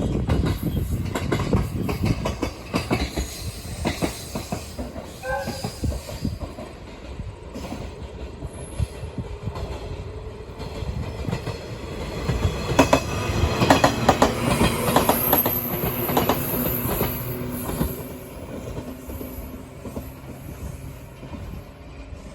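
Shinano Railway electric train moving along the track: its wheels clatter over rail joints, with wheel squeal. The clatter and squeal are loudest in a stretch about two-thirds of the way through.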